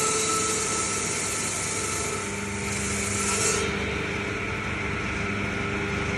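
A twelve-blade ice-cutting machine running steadily, its blades rasping through a block of ice; about three and a half seconds in the rasping stops, leaving only the machine's hum.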